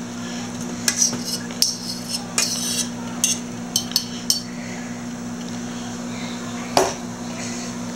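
A serving utensil clinking and scraping against a stainless steel saucepan and a plate as cooked carrot slices are spooned out: a run of light, irregular clinks over the first few seconds, then a single louder clink near the end. A steady low hum runs underneath.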